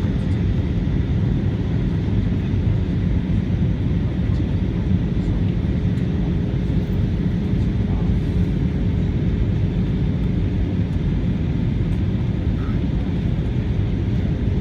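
Airbus A320 airliner cabin noise in flight: a steady, even rumble of jet engines and airflow, with a faint constant hum running through it.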